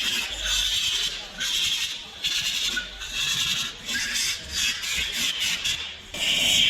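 Rapid, irregular hand scraping or rubbing strokes on an engine part. Near the end these stop and a steady hiss of air starts.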